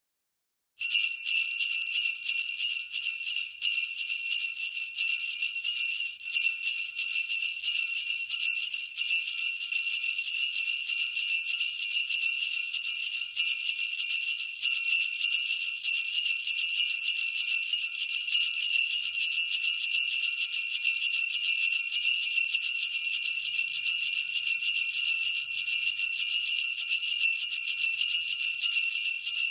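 Sleigh bells jingling continuously, shaken without pause, starting suddenly out of silence about a second in: the alarm that signals the countdown timer has reached zero.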